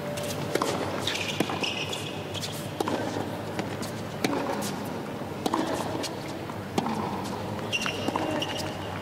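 Tennis serve and baseline rally on a hard court: sharp pops of racket strings hitting the ball and the ball bouncing, every second or so. Shoes squeak on the court surface twice.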